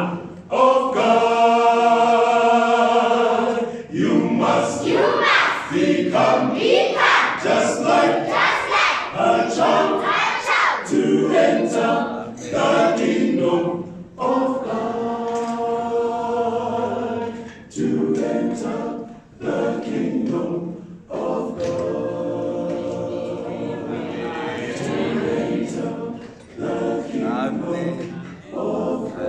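Unaccompanied choir singing a gospel song, with long held chords between shorter phrases and brief breaks for breath.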